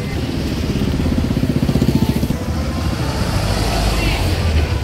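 Motorcycle engine running close by, a fast, even throb that turns into a heavier low rumble in the second half.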